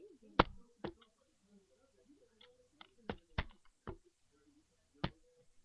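Several sharp knocks and taps right at the microphone, about seven, the loudest about half a second in, from a baby's hands bumping the webcam. Faint soft voice sounds run between them.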